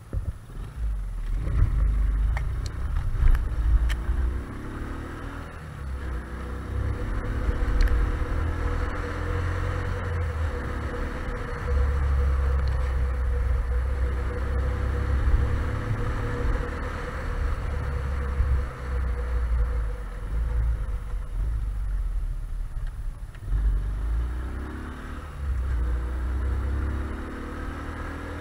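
Small underbone motorcycle engine running while being ridden, its pitch rising several times as it accelerates, over a heavy low wind rumble on the microphone. A few sharp rattling clicks in the first few seconds.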